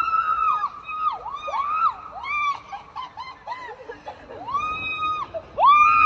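People screaming on a tube water slide. A long high scream is held, then broken into a run of short swooping shrieks that dip and rise, and a long high scream starts again near the end.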